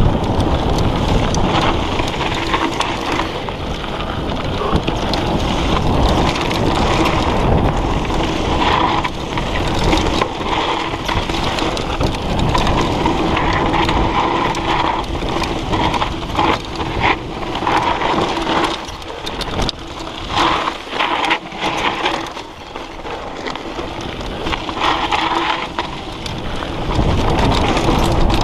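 Wind buffeting the microphone and mountain-bike tyres rolling and crunching over a rocky dirt trail on a fast descent, with frequent rattles and knocks from the bike over the bumps. It eases off for a few seconds past the middle.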